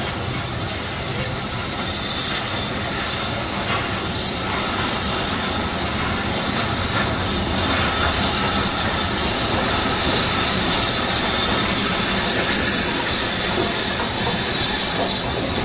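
SE&CR Class P 0-6-0T No.323 and BR Standard 4MT 2-6-4T No.80151, two steam tank engines double-heading a train, running into a station over a steady rumble of wheels on track. A steam hiss grows louder from about halfway as the engines pass close by.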